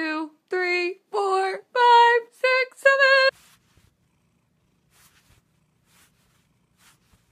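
A high-pitched voice counting aloud from one to seven in short separate calls, each pitched a little higher than the last, then near silence with a few faint ticks.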